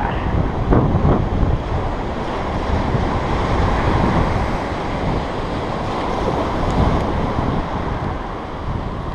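Wind buffeting the microphone in gusts over the wash of small waves breaking on a sand beach.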